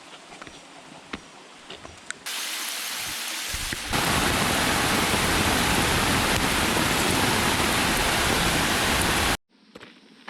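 Heavy rain, a dense even hiss that comes in abruptly about two seconds in, grows louder around four seconds, and cuts off suddenly near the end. Before it, faint scattered drips and ticks.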